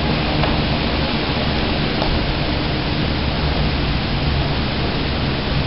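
A steady, loud hiss with a low hum underneath and no distinct events: room and recording noise.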